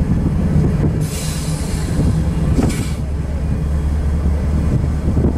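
Diesel locomotive of a manifest freight train running close by, with a steady low engine drone and wheels rolling on the rails. A hiss rises over it from about one to three seconds in.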